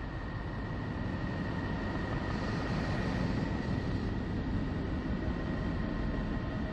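'Sound of Neptune' space-audio recording attributed to NASA's Voyager: a dense, steady low rumbling drone with a thin, steady high tone over it, growing a little louder and brighter about two to three seconds in.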